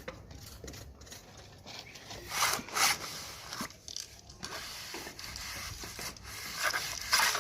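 A hand tool scraping and rubbing over cement render, in uneven strokes; the loudest come about two and a half seconds in and near the end.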